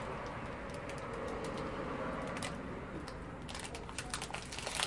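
Safiras foil blind bag crinkling and crackling as it is pulled and torn open by hand. The crackles are sparse at first and come thick and fast over the last second and a half.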